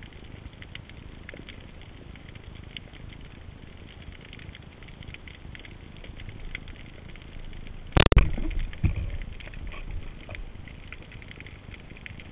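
A speargun fired underwater about eight seconds in: one sharp, loud crack, followed by a couple of seconds of low rumbling and knocking. Around it, a steady faint underwater crackling of tiny clicks.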